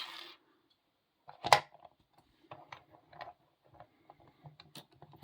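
Lock-picking tools being sorted by hand. A sharp click comes about one and a half seconds in, followed by a run of light, irregular clicks and rattles.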